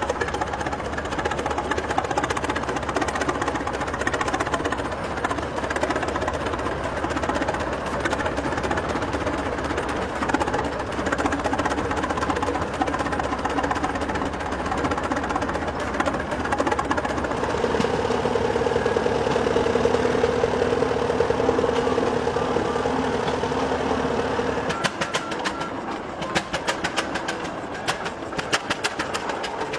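Vintage gas tractor engines running at a slow, steady pace. Partway through, a steady held tone sounds for several seconds. Near the end the sound changes to a quick, regular beat of sharp exhaust strokes.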